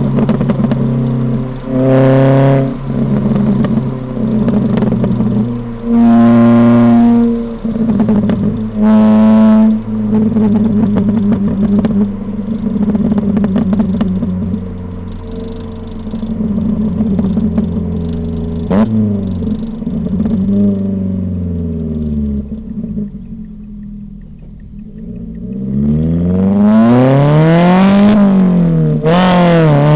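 Ford Fiesta ST150's modified exhaust, with its 2.0-litre four-cylinder engine on the move. It gives three short bursts of throttle, settles to a steady run, and falls in pitch into a quieter lull. It then accelerates hard, rising in pitch, with a sudden drop near the end, a gear change, before climbing again.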